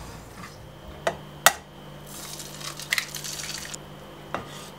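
Spatula working in a nonstick frying pan while an egg fries: a few sharp knocks, the loudest about a second and a half in, then a stretch of hissy scraping and sizzling with more clicks around the middle.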